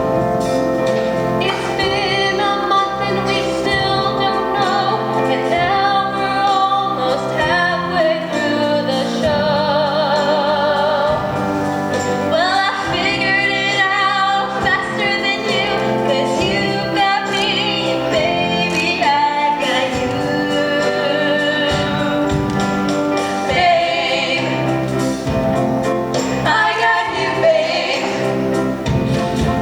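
Music with singing: sung vocal lines with vibrato over accompaniment.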